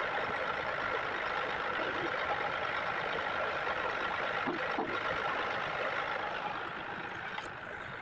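Compressed air blowing from an air gun: a steady hiss with a whistling tone, easing slightly near the end.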